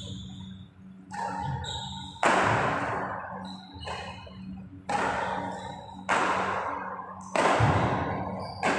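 Badminton rackets striking a shuttlecock in a doubles rally: about five sharp smacks, one every second or so, each ringing on in the hall's long echo.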